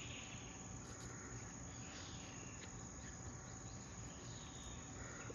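Faint outdoor ambience of crickets giving one steady high-pitched trill, with a few faint bird chirps now and then.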